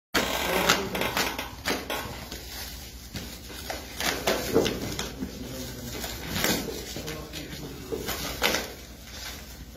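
Plastic wrapping crinkling and tearing as a knife cuts open a plastic-wrapped sack, with irregular handling knocks and rustles.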